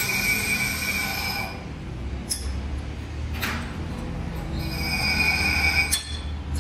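High-pitched metallic squeal from machine-shop machinery over a steady low hum. It fades out for a few seconds midway, with a couple of sharp metal clanks, then returns, followed by another clank near the end.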